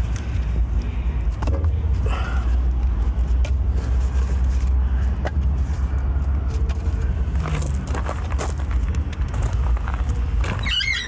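Split firewood logs being loaded into a steel firebox, knocking against the metal and against each other in a series of separate knocks, over a steady low rumble.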